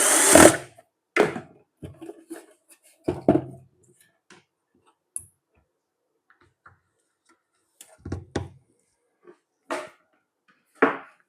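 A small electric motor, likely the mixer grinder's own motor, cuts off about half a second in. Scattered knocks and clicks of handling follow, with a few sharper short bursts near the end.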